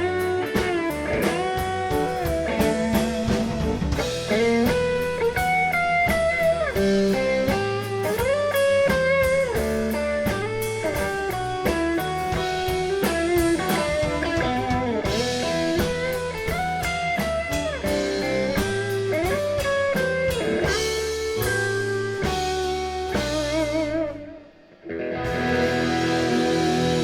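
Live band playing an instrumental break led by an electric guitar, its notes bending and wavering. The music drops out briefly about 24 seconds in, then comes back.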